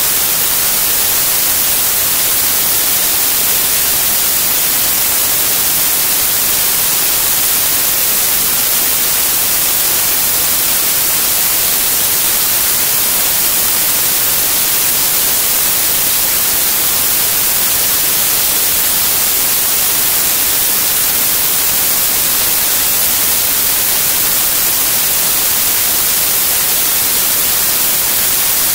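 Static noise: a steady, loud hiss that is brightest in the treble, with no tones, beat or change.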